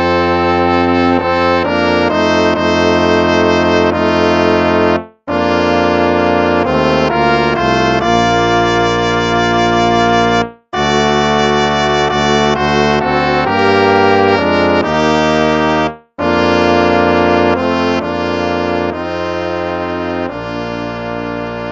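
Instrumental hymn played on brass, sustained chords in phrases separated by brief pauses about every five seconds, growing quieter over the last few seconds.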